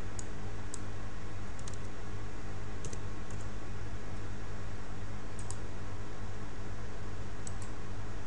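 Computer keyboard and mouse clicks: scattered short, sharp clicks, several in quick pairs, over a steady low electrical hum.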